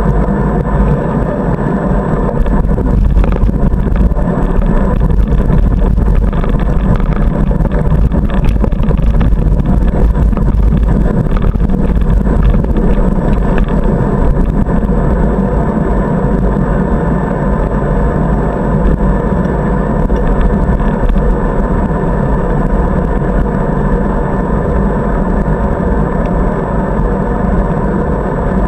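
Steady wind rumble on a bicycle-mounted camera's microphone while riding, mixed with the running noise of the bike on the paved path.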